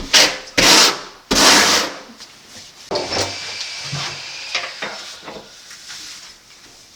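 Three loud, hard rubbing or scraping strokes in quick succession in the first two seconds, then softer, steady scraping that fades out near the end.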